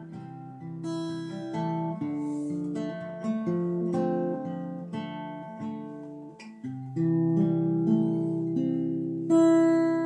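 Acoustic guitar playing the closing bars of a song: picked notes and strums, then a final chord struck about nine seconds in and left ringing.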